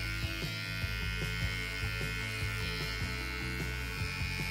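Electric pet hair clipper running with a steady buzzing hum as it is worked through a toy poodle's fur, with small irregular ticks.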